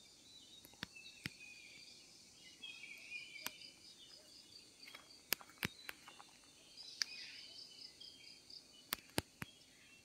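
Quiet rural morning ambience: birds calling, over a steady high-pitched pulsing insect chirr. About eight sharp clicks are scattered through.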